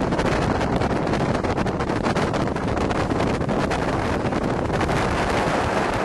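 Wind buffeting the microphone over the steady noise of a motorboat running fast across the water.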